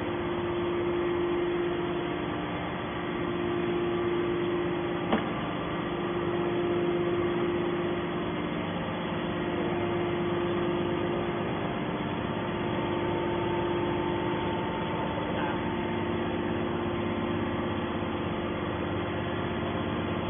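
Hydraulic scrap metal baler's power unit running with a steady hum, with one sharp click about five seconds in.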